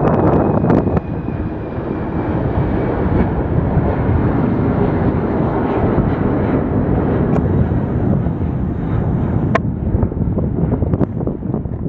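Jet airliner engine noise with wind buffeting the microphone, and a faint high engine whine slowly falling in pitch early on.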